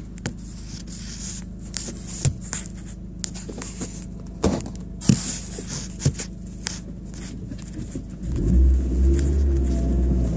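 Audi A4 1.8-litre turbocharged four-cylinder engine heard from inside the cabin, running with a steady low drone amid scattered sharp clicks and knocks. About eight seconds in, the engine gets much louder and deeper as it is put under load.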